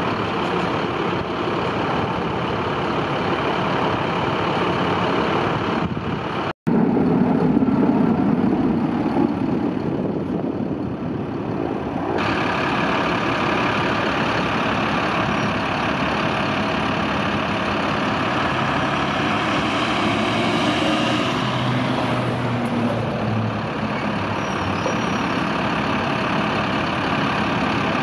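Diesel engines of parked fire engines and water tenders idling in a steady din, with a brief break about six and a half seconds in.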